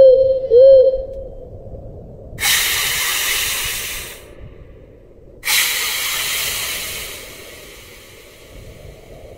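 Two loud bursts of hissing noise, each starting suddenly and lasting about two seconds, the second fading away. A warbling electronic tone ends about a second in.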